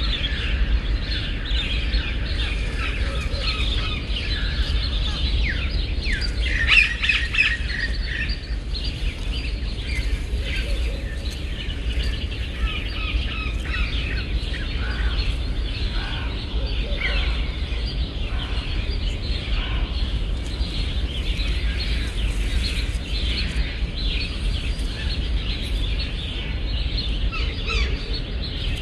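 Many small birds chirping together, a dense chorus of short chirps and trills that is busiest and loudest about seven seconds in, over a steady low rumble.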